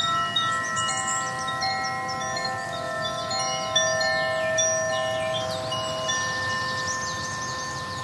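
Wind chimes ringing, many long overlapping tones, with quick high chirps over them.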